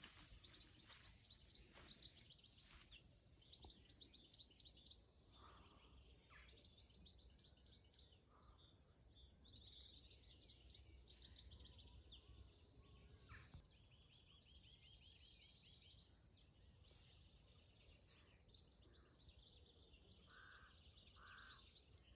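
Faint dawn chorus of many songbirds, with overlapping trills and chirps throughout, and two short lower calls near the end.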